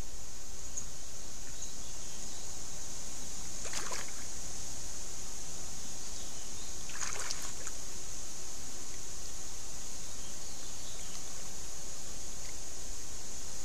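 Water sloshing as a yearling black bear shifts about in a shallow pond, twice briefly, about four and seven seconds in, over a steady high hiss.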